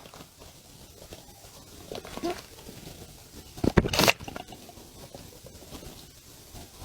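Drinking sounds: short sips or gulps, a soft one about two seconds in and a louder one near the middle.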